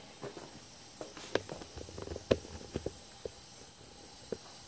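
Faint movement and handling sounds: a scattering of light, irregular knocks and clicks, the strongest just over a second in and just over two seconds in.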